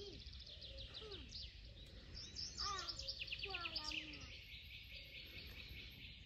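Songbirds singing, with rapid trilled phrases that grow busiest and loudest about halfway through, and a few lower gliding calls among them.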